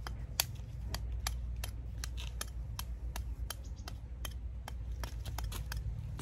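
Shell of a balut duck egg being tapped and cracked open: a run of small sharp clicks, unevenly spaced at about three a second, over a steady low rumble.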